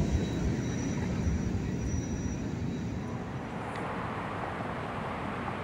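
Freight train's wheels rumbling over the rails as the cars roll away, the sound slowly fading, with a faint high wheel squeal that dies out in the first second or so.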